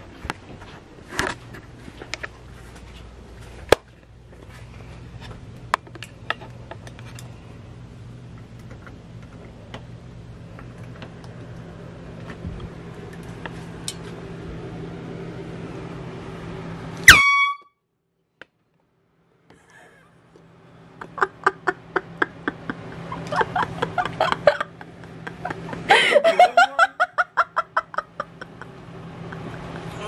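Handheld canned air horn blasted once at close range: a single very loud, short, high-pitched honk about halfway through, after a stretch of quiet room noise with a few soft knocks. A person's voice follows a few seconds later.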